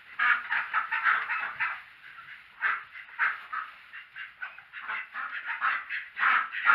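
A small flock of Indian Runner ducks quacking, many short calls overlapping in bursts with brief lulls between them.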